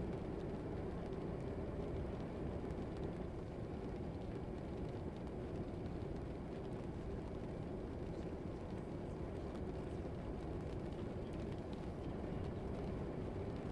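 Steady low background rumble of a classroom ambience recording, with faint scattered ticks.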